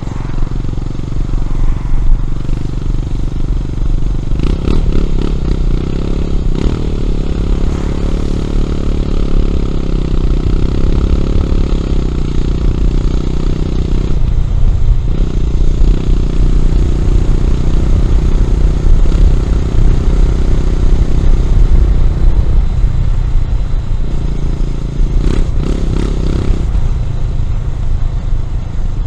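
Honda CB400SS single-cylinder engine through a Yamamoto A-spec exhaust, under way. The engine note rises and falls with the throttle, over a steady low rumble, and dips briefly about fourteen seconds in.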